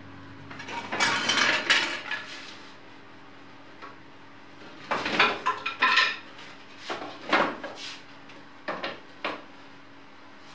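Plywood frame pieces and strips knocking and clattering as they are handled and set down on a workbench: a burst of clatter about a second in, another around five seconds in, then a few single knocks. A faint steady hum runs underneath.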